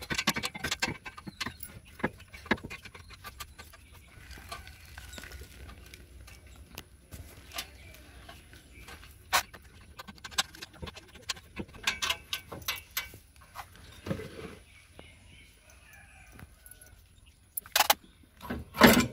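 Scattered metal clinks and taps of a spanner on the mounting nuts and bolts of a two-stroke auto-rickshaw's exhaust silencer as it is unbolted, with two loud clanks near the end.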